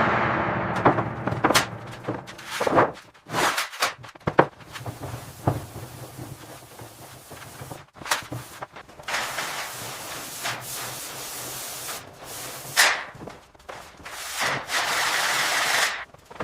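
Cleanup work noises: stretches of scraping or rubbing broken by a string of knocks and thuds.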